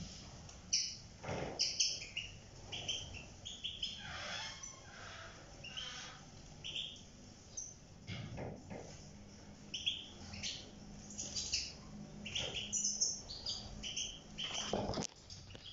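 European goldfinches chirping and twittering in short, high calls, with a short knock near the end.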